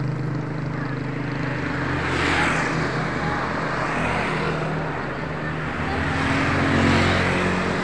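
Road traffic passing on a street: two vehicles swell up and fade away, one about two seconds in and another near the end, over a steady low engine hum.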